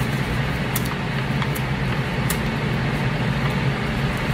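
Steady hum and hiss of a fan or air-conditioning unit running, with a few faint ticks over it.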